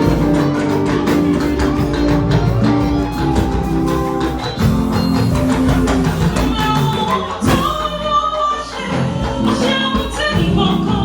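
Church anthem music: a band with guitar and a steady percussion beat, with voices singing that come in strongly partway through.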